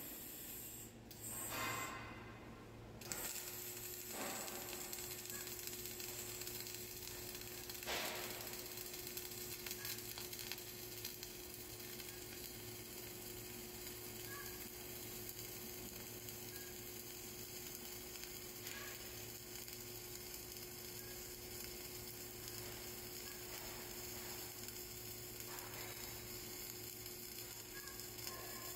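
Flux-cored arc welding on a vertical butt joint, laying the first stringer (root) pass. After a few short starts in the first three seconds, the arc runs steadily with an even noise and a steady low hum beneath it.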